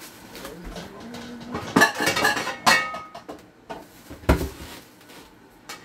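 Dishes and pots clattering and clinking as they are handled, busiest about two to three seconds in with a brief metallic ring, then one heavy knock a little past four seconds.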